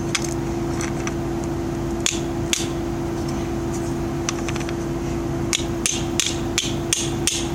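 Light metal taps and clicks of a hammer working at a piece of scrap metal, a couple about two seconds in, then a run of strikes about two a second near the end, over a steady low hum.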